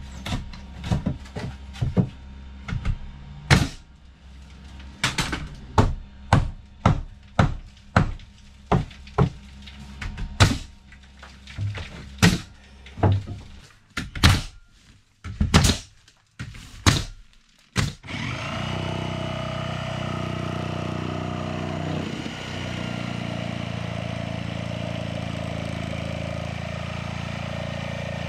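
A staple gun fastening the paper flanges of Kraft-faced fiberglass insulation batts to wall studs, firing sharp staple shots about once a second or a little faster. About eighteen seconds in, the shots stop and a steady drone takes over.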